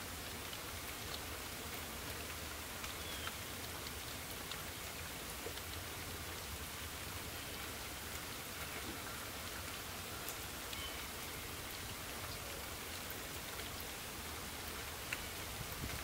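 Steady rain falling in woodland, an even soft hiss with scattered small ticks of drops landing, and one sharper tap near the end.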